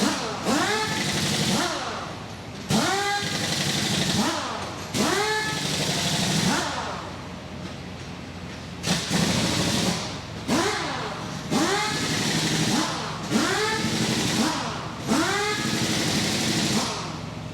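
Pneumatic impact wrench running lug nuts on a semi-truck wheel in a string of short bursts, each one rising and then falling in pitch with a hiss of air. A low steady hum runs underneath.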